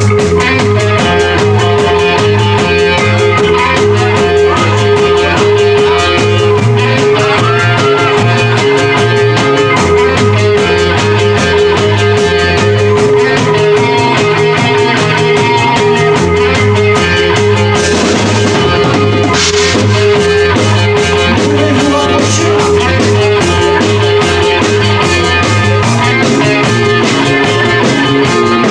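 Rock band playing live: electric guitars, bass guitar and drum kit, with a short wash of cymbals about two-thirds of the way through.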